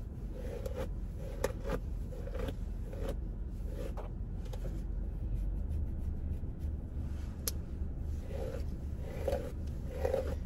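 A hairbrush dragged through long, thick natural hair in a steady run of scratchy strokes, a little under two a second. The strokes pause in the middle and start again near the end, over a low steady hum.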